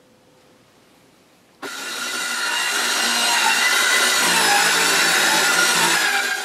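Corded Skil circular saw cutting lengthwise through a wooden stair tread to trim off its bullnose, the motor's steady whine mixed with the blade's rasp in the wood. It comes in suddenly about a second and a half in, already cutting.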